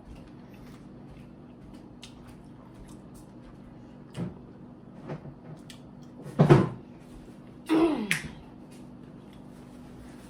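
A person reacting to very spicy food: a short, loud burst of breath about six and a half seconds in, then a groan falling in pitch about a second later, over a steady low room hum and faint mouth clicks.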